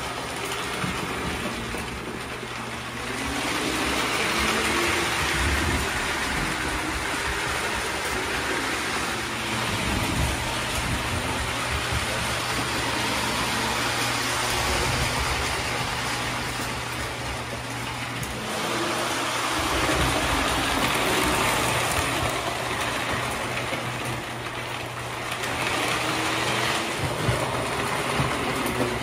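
Postwar Lionel O-gauge toy trains running on a three-rail layout: wheels rolling and clattering over the track and motors running, getting louder and softer as the trains pass near and away, over a steady low electrical hum.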